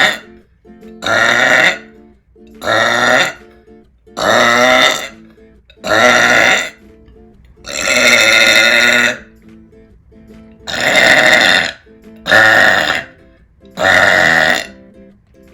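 A woman burping loudly again and again: about nine long, deep burps, roughly one every second and a half, the longest near the middle.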